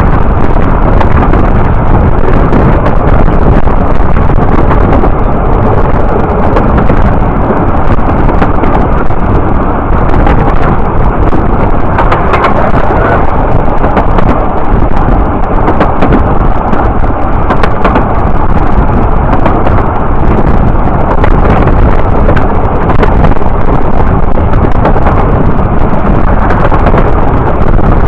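Loud, steady rumbling noise with wind buffeting the microphone, close to overloading it.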